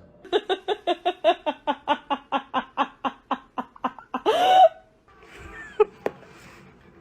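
A person laughing in a rapid, rhythmic run of about five short ha-ha bursts a second that slowly fades, then a brief loud high-pitched squeal about four seconds in.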